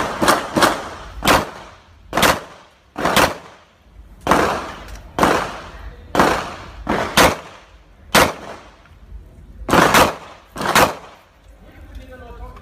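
About a dozen pistol shots fired through an IDPA course of fire, some singly and some in quick pairs, each with a short ringing tail.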